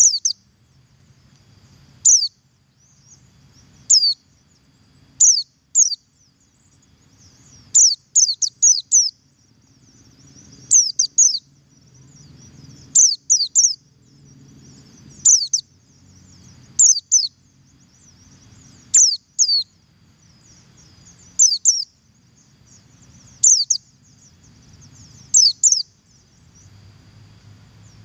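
Pleci buxtoni white-eye double call: sharp, high notes that slide downward, coming about every two seconds and often doubled or tripled. It is a lure call meant to get other white-eyes singing.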